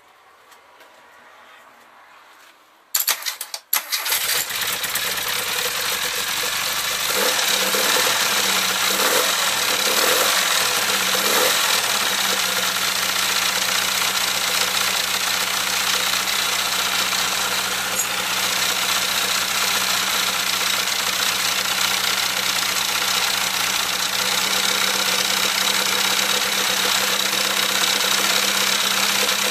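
Classic Mini 1380 four-cylinder A-series engine with a Piper 649 scatter camshaft, cranked briefly about three seconds in and catching at once. Its revs rise and fall a few times, then it settles to a steady fast idle, the speed used to run in the new camshaft.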